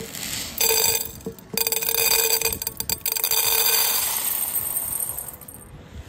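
Dry bird pellets poured into a stainless steel bowl: a dense clatter of pellets striking the metal, with the bowl ringing. A short pour about half a second in, then a longer pour of about four seconds that tails off near the end.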